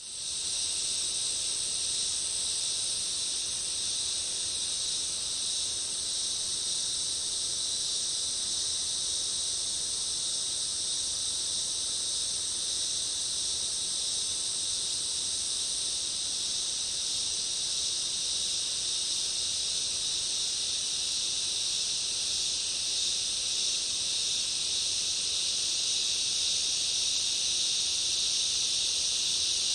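Dense, steady high-pitched insect chorus of a summer rainforest, cicadas and crickets droning without a break, with a faint low rush of distant creek water underneath. It fades in within the first half second.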